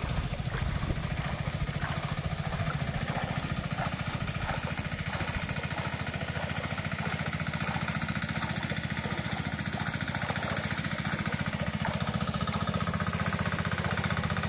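A small engine running steadily at a constant speed, with a fast, even pulse.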